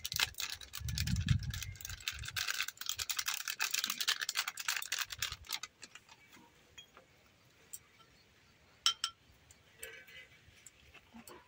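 Biryani masala being sprinkled and spread over layered rice: a run of fast, dry, scratchy ticking and rustling for about five and a half seconds, with a low bump about a second in, then a few scattered clicks.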